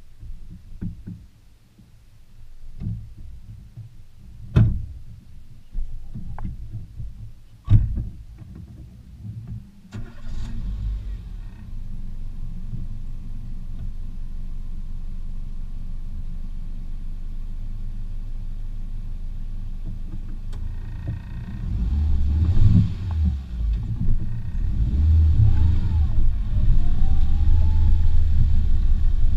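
Renault Clio engine starting about a third of the way in and idling with a steady low rumble, then revving and running louder under load as the car pulls away near the end. Before the start there are only a few scattered knocks.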